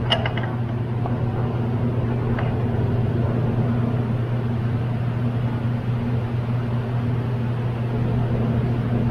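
A steady machine hum: a low electric drone with an even rushing noise over it.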